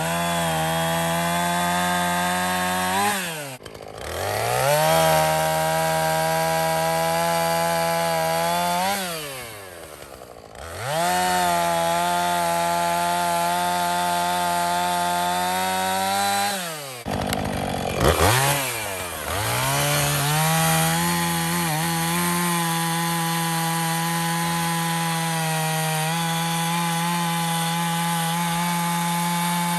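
Two-stroke chainsaw running at full throttle while cutting wood. The engine holds a steady high pitch and drops to idle three times, each time revving straight back up.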